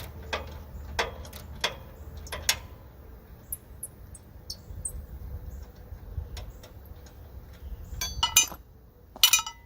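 Irregular metallic clicks and clinks of a 10 mm socket wrench working a screw out of the mower's metal bracket, with a cluster of sharper clinks near the end.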